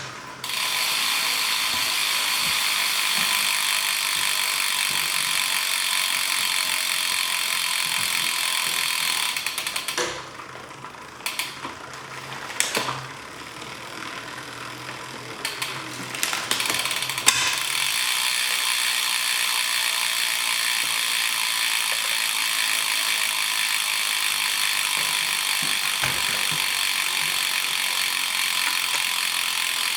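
Bicycle drivetrain spun on a work stand, the chain running over the gears and the rear hub freewheel ticking rapidly, as the gear adjustment is tested. The steady run drops away about ten seconds in, with a few scattered clicks, and picks up again a few seconds later.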